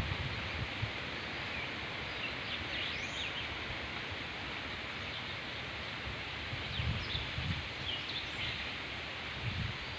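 Steady riverside ambience: an even hiss with scattered faint bird chirps, and a few low rumbles about seven seconds in.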